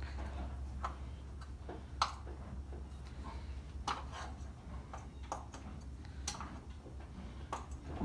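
Farrier working a horse's shod hind hoof with a hand tool: irregular sharp clicks and scrapes, about two a second, a few louder than the rest, over a low steady hum.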